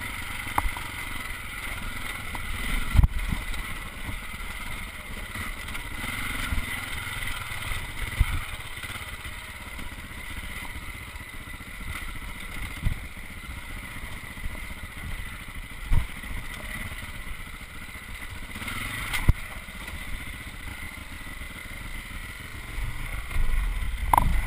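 Dirt bike engine running at low speed as the bike picks its way over rocky singletrack, with several sharp knocks from the bike striking rocks. It gets louder near the end.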